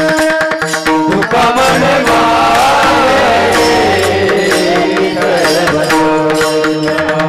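Marathi Varkari devotional bhajan (panchapadi): a singing voice over held drone notes, with steady hand-drum strokes and percussion keeping the rhythm.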